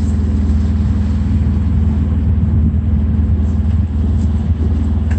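Sailboat's engine running steadily under way, a constant low drone with even harmonics, pushing the boat along at about 5 knots.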